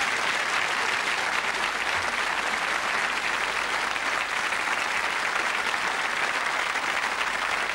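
Studio audience applauding, a dense, steady clapping of many hands.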